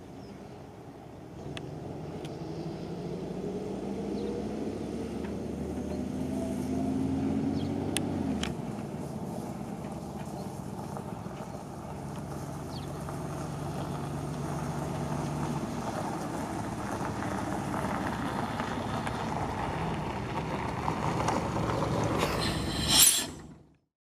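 1985 MAN SL200 city bus's diesel engine pulling away, its pitch rising for several seconds and then falling abruptly about eight seconds in. It then runs steadily, growing louder as the bus drives toward the listener, with a brief loud burst of noise near the end before the sound cuts off suddenly.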